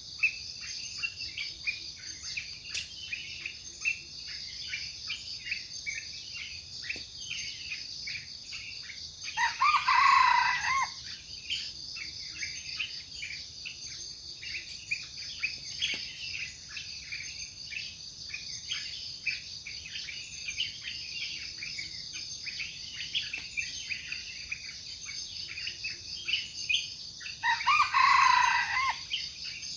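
A wild junglefowl crowing twice, about ten seconds in and again near the end, each crow about a second and a half long, over a steady high insect buzz and scattered bird chirps.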